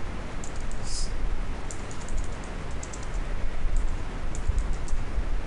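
Computer keyboard being typed: a handful of scattered key clicks as a short command is entered, over a steady low background rumble.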